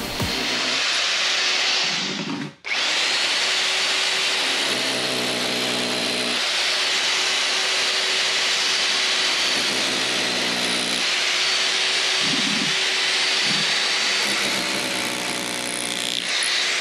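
Hammer drill with a chisel bit running continuously as it chips away the face of concrete blockwork, with a brief stop about two and a half seconds in.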